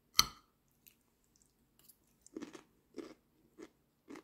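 A fork clicks sharply once against a plate, then someone chews, about one chew every half second.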